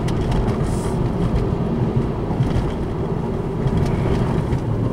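Tyre and road noise inside a moving car's cabin: a steady, loud rumble from driving on coarse, uneven asphalt.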